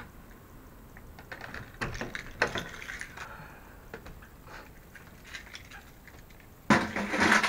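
Keys rattling and clicking at a door lock as a storage closet door is unlocked and opened, with a few sharp knocks and rattles. A louder, longer scraping rustle comes near the end.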